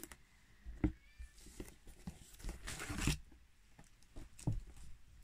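Faint handling noises from a cardboard kit box: scattered knocks and clicks, with a brief rustle about two and a half seconds in.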